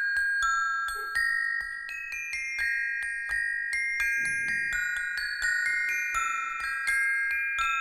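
A tune played on a tabletop set of tuned metal bars struck with two thin beaters: a quick melody of about two to three strikes a second, each note ringing on and overlapping the next. The notes stop near the end and the last ones fade away.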